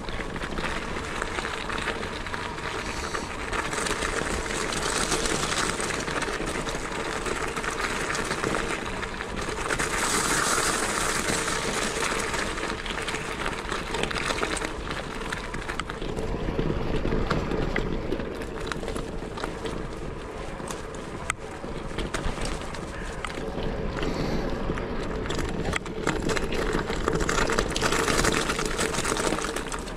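Wind rushing over an action camera's microphone, mixed with tyre and road noise from a moving bike, swelling and easing every few seconds.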